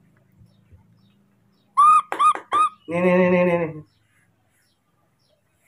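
Infant macaque giving three quick, high-pitched squeaky cries, each rising and falling, followed by a lower, held sound lasting about a second.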